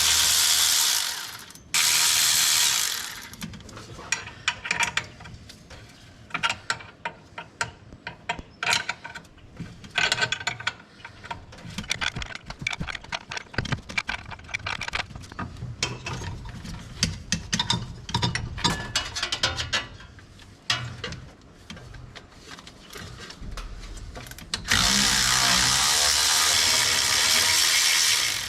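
Hand ratchet clicking in quick runs as bolts on a power steering pump are loosened. Loud bursts of a power tool come at the very start, about two seconds in, and for several seconds near the end.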